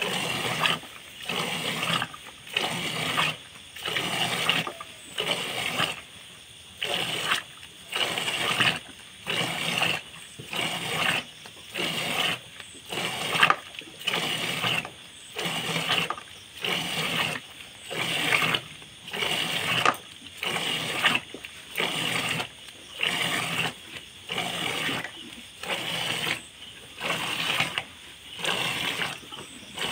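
Cow being milked by hand into a plastic bucket partly full of milk: jets of milk squirt into the milk in a steady rhythm, about one burst a second.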